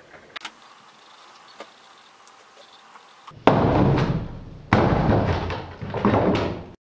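Three loud, heavy impacts, each deep and ringing on before dying away over about a second, the first about halfway through and the others following at intervals of just over a second; faint clicks before them.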